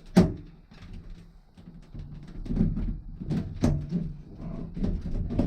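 A sharp knock just after the start, then scattered softer knocks and handling clatter.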